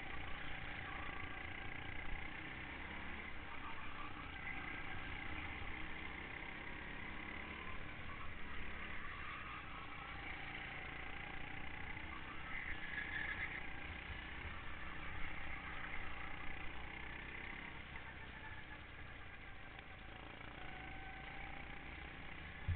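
Go-kart engine running at speed, heard from on board, its note rising and falling through the corners, over a steady low rumble of wind and track noise.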